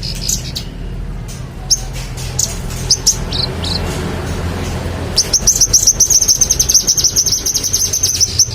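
A manggaran songbird singing: scattered high chirps and a couple of short falling notes, then about five seconds in a long, rapid, high trill of quickly repeated notes that breaks off near the end.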